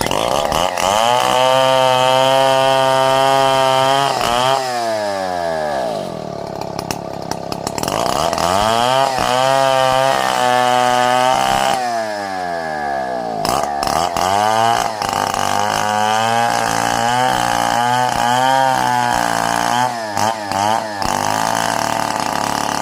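Two-stroke chainsaw engine revved up to high speed and held for a few seconds before dropping back, twice, then opened and closed in a run of shorter blips.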